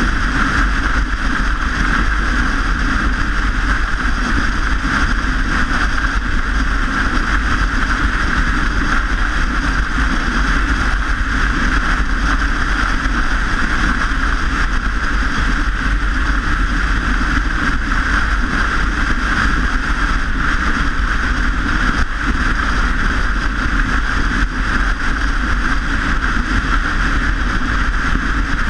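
Steady wind and road noise from riding a bike, with a constant low wind rumble on the microphone.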